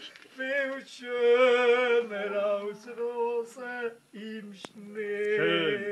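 A man singing a Swiss German folk song unaccompanied, holding long, steady notes with short breaths between them and a wavering note near the end.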